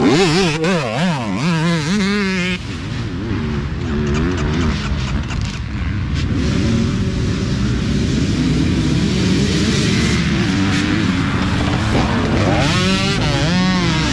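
Dirt bike engines at a race start. Throttles are blipped so the revs swing rapidly up and down, then the engines settle to a steady running drone. Near the end a row of bikes accelerates hard off the line, rising in pitch.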